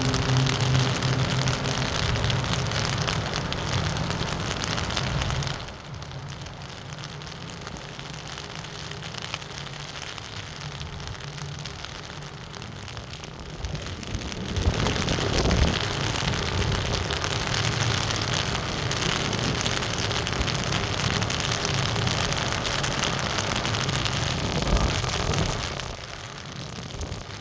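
Wind buffeting the microphone: a loud rushing hiss that cuts out suddenly about five seconds in, returns about halfway through and cuts out again near the end. Under it is the low, steady drone of the Red Hook tugboat's diesel engines, clearest in the first couple of seconds.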